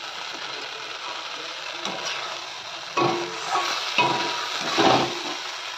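Chopped vegetables in a tomato-chilli sauce sizzling in a metal kadai over a high gas flame. A perforated metal spatula stirs them, scraping and clinking against the pan several times in the second half.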